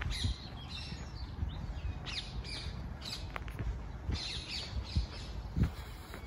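Birds calling with short squawks and chirps, over the low thud of footsteps at a walking pace, one thump standing out about five and a half seconds in.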